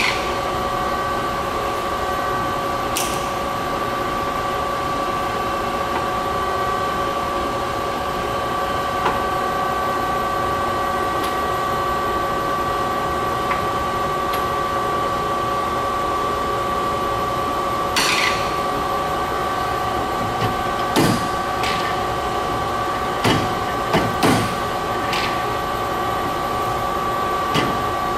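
1973 Warner & Swasey No. 5 ram-type turret lathe running with a steady hum and whine, while its levers and handwheels are worked: scattered short metallic clicks and clunks, most of them in the last ten seconds.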